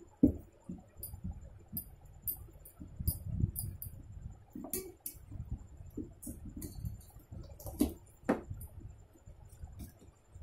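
Eating by hand from a stainless steel plate: fingers mixing and scraping rice and curry against the metal, giving irregular light clinks and scrapes, with one sharper knock right at the start.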